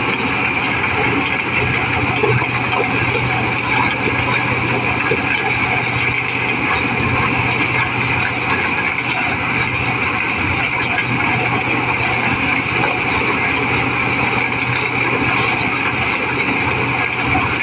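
Mobile corn sheller running steadily under load as unhusked cobs are fed in and shelled. Its engine and threshing drum make a loud, even drone.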